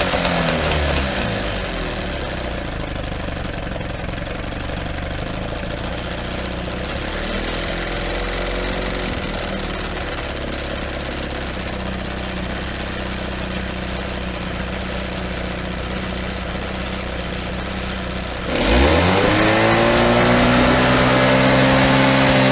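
1978 Evinrude 9.9 two-cylinder two-stroke outboard running in a test tank on its new water pump. It drops back to a steady idle about a second in, then is throttled up sharply near the end and held at higher revs.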